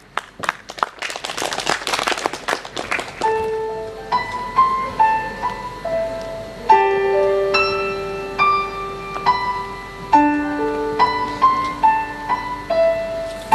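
Audience clapping for about three seconds, then a piano begins a slow, gentle intro of single sustained notes.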